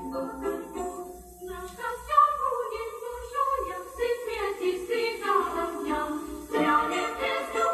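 Background music: a group of voices singing a melody.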